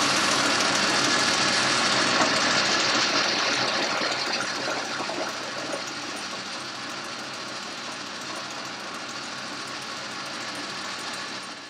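Boxford metal lathe running under power while an insert-tipped tool faces the end of a metal bar: a steady machine drone with a low motor hum and cutting noise, getting somewhat quieter about halfway through.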